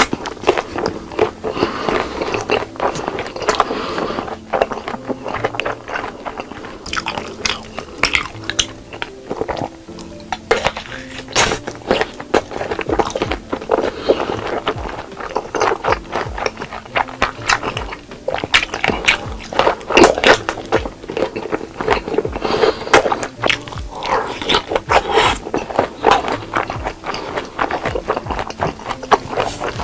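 Close-miked eating: repeated biting, crunching and chewing of food, with many sharp clicks and crackles, over background music.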